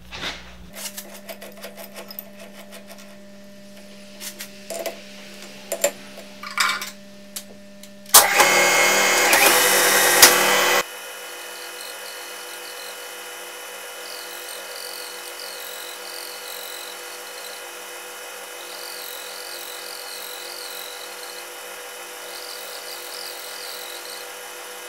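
Clicks and knocks of a tool being set in a lathe's quick-change tool post, then a loud whirring noise for about three seconds that stops abruptly. After it, a Clausing metal lathe runs steadily, cutting a threaded steel rod, with a faint chirp repeating over the motor hum.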